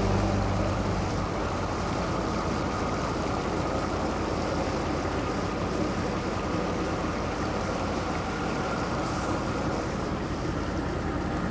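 A small boat's motor running steadily underway on the river, mixed with wind noise on the microphone. The tail of background music fades out in the first moment.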